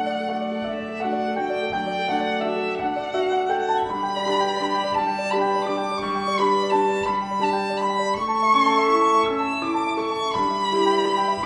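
Violin playing a slow melody of long held notes that step up and down over a sustained low note.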